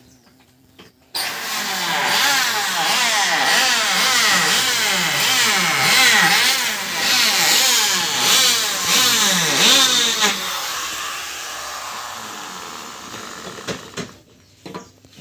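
Wood planing machine running loudly, its pitch repeatedly dipping and recovering as it cuts, starting suddenly about a second in and winding down over the last few seconds.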